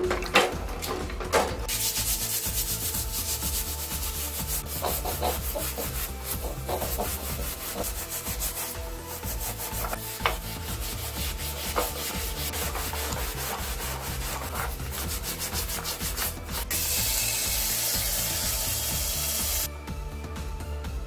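Steel scouring pad scrubbing wet, soapy wooden hammer handles, a steady scratchy rubbing that cleans off dirt after a day's soak. It opens with a few metallic clinks as the hammers are lifted from the soaking tub, and a louder hiss lasts about three seconds near the end.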